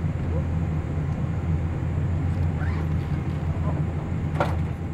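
Steady low rumble of a Boeing 777-300ER's cabin during the descent on final approach, with faint voices in the background and a brief click near the end.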